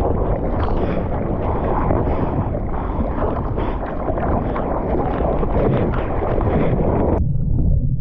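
Wind and rushing water on a surfer's point-of-view camera microphone, a loud, dense rush that turns suddenly into a muffled low rumble about seven seconds in.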